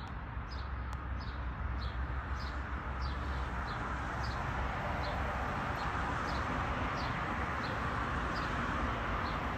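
A small bird calling over and over, a short high note falling in pitch about every half second, over a steady background hiss and low rumble.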